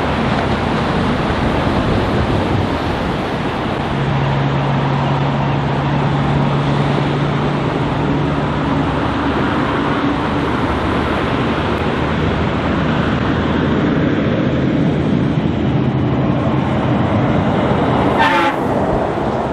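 Heavy truck and trailer driving along the highway: a steady engine drone and tyre noise as it approaches, then a brief rush as it passes close by about eighteen seconds in, after which the sound falls away.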